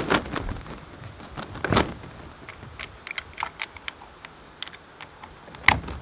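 Light metal clicks and taps as a hook-and-eye latch is fastened on a wooden greenhouse door, with louder taps about two seconds in and near the end.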